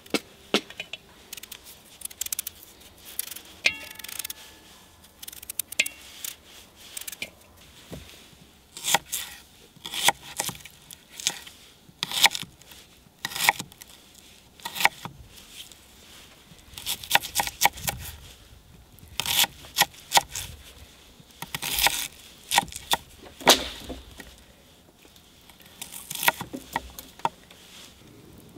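Irregular sharp clicks, knocks and scrapes, with a brief ringing tone about four seconds in.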